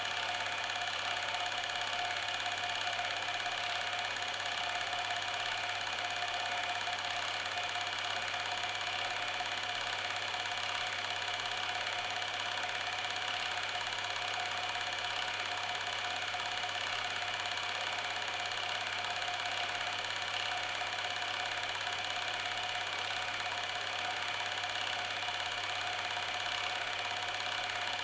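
Steady mechanical whirring hum, like a small motor running at a constant speed, unchanging throughout.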